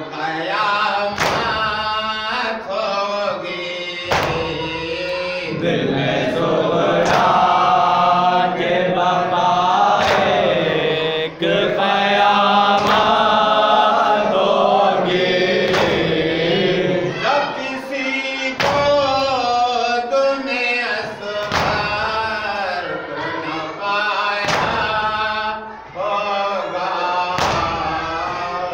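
Men chanting a noha, the Shia lament, in unison behind a lead reciter on a microphone. Sharp thumps come every one to three seconds, typical of matam, hands striking chests in time with the lament.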